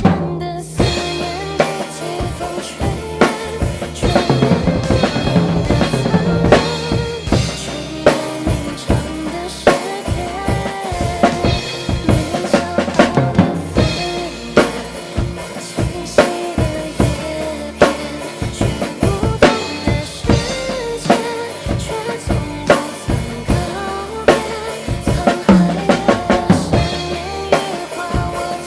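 Drum kit played along with a pop song's backing track: kick drum, snare and rimshot strokes keeping a steady beat over sustained instrumental backing with no singing.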